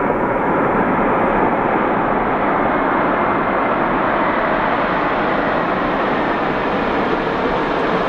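Boeing 787-9 Dreamliner's Rolls-Royce turbofan engines running as the airliner rolls on the runway: a steady, loud rush of jet noise that grows slightly brighter over a few seconds.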